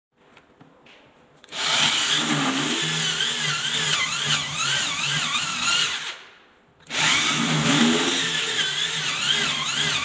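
A corded electric drill with a long twist bit boring into the wooden edge of a door, drilling a row of holes to cut the lock pocket. It starts about a second and a half in, runs, winds down around six seconds in, and starts again under a second later. The motor's pitch wavers up and down as the bit bites into the wood.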